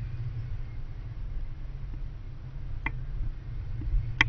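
Wind buffeting the microphone in flight, a steady low rumble, with two sharp clicks near the end.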